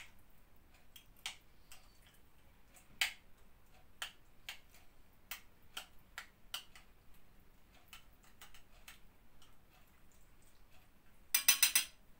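A spoon clicking against a glass bowl while stirring a soft margarine-and-oil mixture: scattered light clicks, then a quick run of louder clicks about a second before the end.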